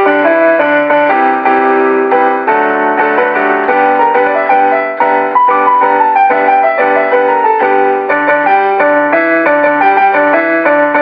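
Background music: a keyboard tune, its notes changing several times a second at a steady level.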